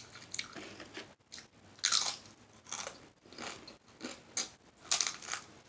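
A person chewing food close to the microphone, with mouth-smacking and crunching bites coming in about six short, irregular bursts.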